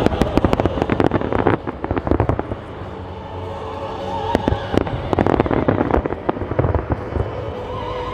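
Fireworks in a grand-finale barrage: rapid volleys of bangs and crackles, densest in the first two seconds and again around the middle. Music with held notes plays underneath.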